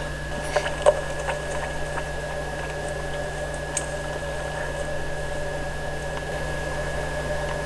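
Steady recording hum and hiss from a consumer camcorder, with a constant thin high whine and a low hum, and a few faint clicks in the first second or so.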